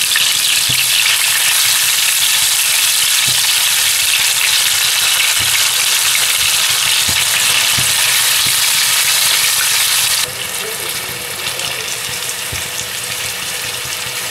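Marinated boneless chicken pieces frying in hot oil in a frying pan: a steady loud sizzle, with a few soft knocks as the pieces are stirred with a metal spoon. The sizzle drops suddenly to a quieter level about ten seconds in.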